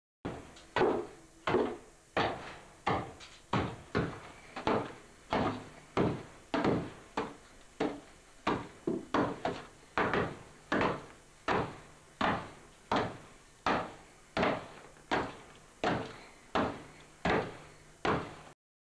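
Calcite stones being crushed for pottery temper, struck in a wooden trough with a hand hammer. The blows fall in a steady rhythm, about one and a half a second, each a sharp knock with a short ring.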